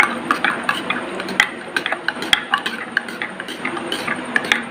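A spoon stirring and mashing thick cooked pearl-millet porridge into curd in a small bowl, with irregular clinks and scrapes against the bowl several times a second.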